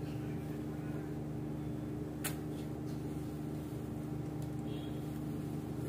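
Steady low machine hum with a few fixed tones, like a household appliance running, and a single sharp click about two seconds in.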